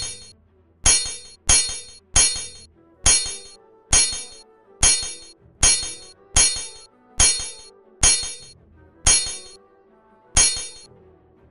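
Sword-clash sound effect: a sharp metallic clang that rings briefly, repeated evenly about every three-quarters of a second, some fourteen times.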